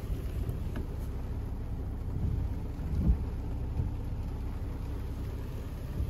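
Heavy rain and wind buffeting the microphone: a low, uneven rumble with a stronger gust about three seconds in.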